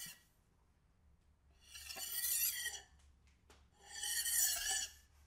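A lightweight butter knife's blade dragged across a kitchen countertop past the microphone, twice: each pass is a scraping whoosh that swells and fades over about a second, like a spaceship flying by. The very start catches the fading end of an earlier pass.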